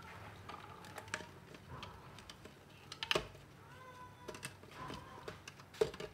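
Scattered light clicks and knocks of a plastic blender jar being handled and set on its base, with a sharper knock about three seconds in and another near the end.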